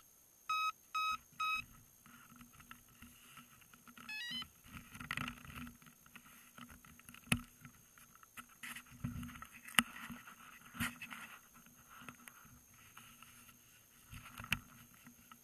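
Electronic beeps from a radio-controlled model plane's electronics with the propeller stopped: three short equal beeps, then a quick rising run of tones. After them come scattered sharp clicks, knocks and rustling as the plane is handled.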